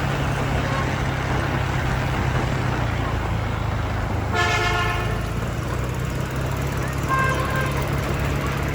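A vehicle horn honks once for about half a second, about four and a half seconds in, and a shorter, fainter honk follows about seven seconds in. Both sound over the steady running hum and road noise of a motor vehicle.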